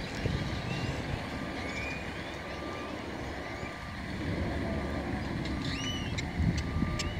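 Low rumble of a vehicle engine, with a reversing alarm beeping about once a second and a few bird chirps.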